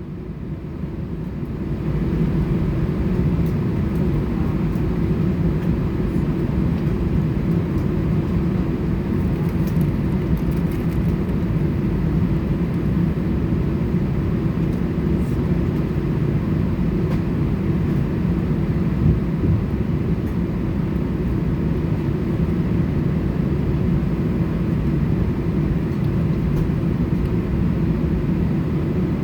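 Airbus A320 jet engines running, heard from inside the passenger cabin: a steady hum over a low rumble, growing louder over the first two seconds and then holding steady.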